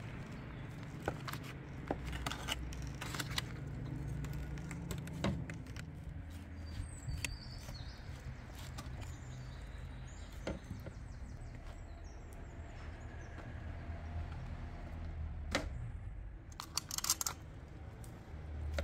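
Aluminium foil crinkling and a large kitchen knife tapping and scraping as roasted lamb meat is pulled off the bone: scattered clicks and short rustles, with a quick run of them near the end, over a low steady rumble.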